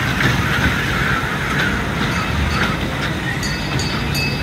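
Kiddie ride train running past on its track and moving away, mixed with general fairground noise.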